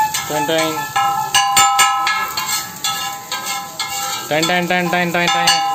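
Metal spatula clanking and scraping on a large iron tawa as paneer cubes are stirred, with a quick run of sharp taps about a second and a half in. Music plays underneath throughout.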